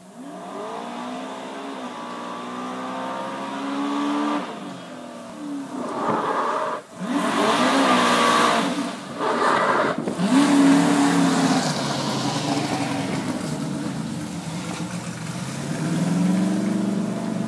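A fire-department drill team's racing truck engine revving hard as it accelerates down the track. Its pitch climbs and drops back with several gear changes, and it is loudest about halfway through as it passes.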